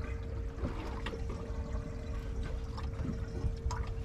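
Water lapping and dripping against the hull of a small boat on a calm sea, with scattered small splashes and ticks over a low rumble and a faint steady hum.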